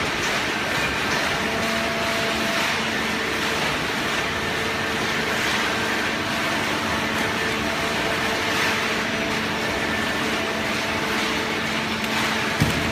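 Hydraulic cardboard baler running: a steady motor-and-pump hum with faint steady whine tones, and one short knock near the end.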